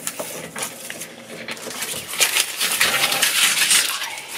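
Microfiber cloth brushing over a cut sticker sheet to wipe off the leftover paper crumbs: a scratchy rubbing that grows louder about two seconds in.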